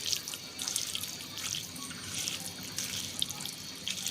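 Minced raw chicken being mixed by hand with spices, oil and lemon juice in a bowl: irregular soft, wet squelching.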